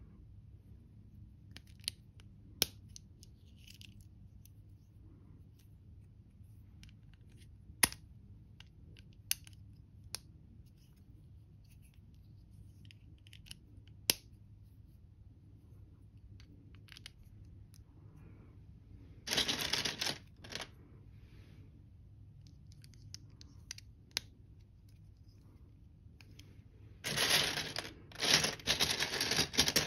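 LEGO bricks and plates snapping together, a few separate sharp clicks several seconds apart. Just after the middle and again near the end, loose LEGO pieces rattle and clatter as a hand rummages through a tray of parts.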